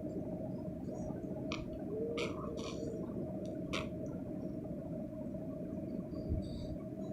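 A baby making a few short, high squeals between about one and a half and four seconds in, over a steady background hum.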